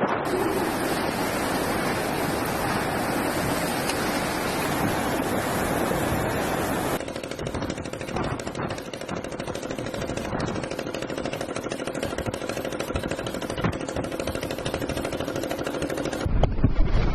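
Cyclone storm noise of strong wind and heavy rain, with gusts buffeting the microphone. The sound changes abruptly about seven seconds in and again near the end.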